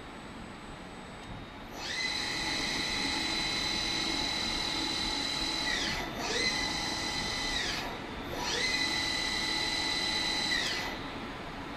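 Spinner VC 650 CNC vertical machining centre's spindle spinning up to a steady high whine and winding down, three times in a row. The last two runs are shorter than the first.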